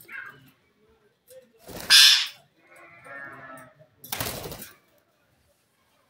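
Indian ringneck parrots screeching: two loud harsh squawks, about two and four seconds in, the first the loudest, with softer chattering between them.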